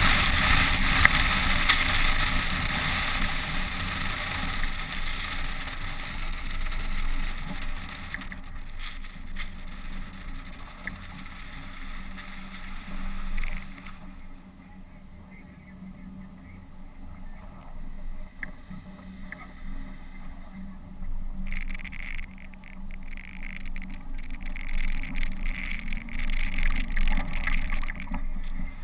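SUV driving over packed snow, heard from a camera mounted outside on the body: a steady rush of wind and tyre noise over a low engine hum. The rush drops away for several seconds past the middle, then builds again.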